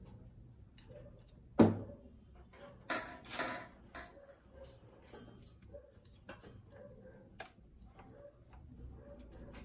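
Metal latch needles on a domestic knitting machine being worked by hand, giving scattered small clicks and ticks. The loudest is a sharp click about one and a half seconds in, followed by a short scraping rustle around three seconds in.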